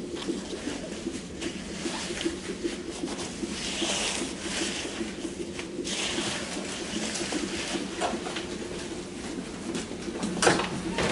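A steady, low, fluttering hum runs throughout. Soft rustling, like clothing brushing, comes about four to six seconds in, and a short knock sounds near the end.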